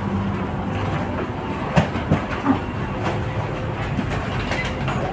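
Passenger train running, heard from inside the carriage: a steady rumble and hum of the train on the rails, with a few sharp clacks about two seconds in.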